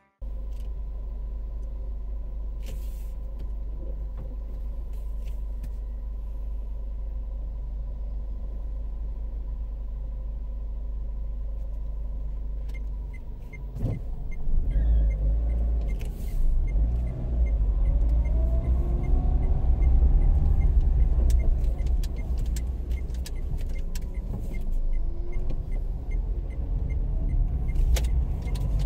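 Car driving, a steady low road and engine rumble that grows louder about halfway through, with the engine pitch rising and falling. A faint regular ticking, about twice a second, comes in at the same point.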